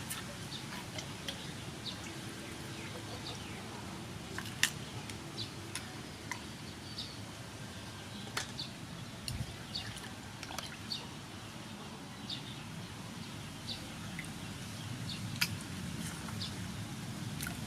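Small birds chirping now and then over a steady outdoor background, with a few sharp clicks from handling as the squid is prepared.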